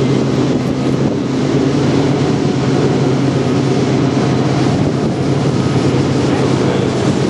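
Long train of loaded coal hopper cars rolling through the gorge far below: a steady, unbroken rumble with a low hum running under it.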